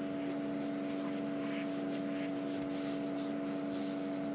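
Small electric fan running with a steady hum, left on overnight in a truck-cap camper to keep condensation down.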